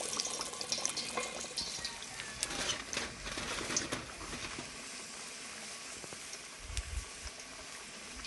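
Whole onion frying in very hot oil in a disco pan: a steady sizzle with fine crackles, strongest at the start and easing a little after a few seconds.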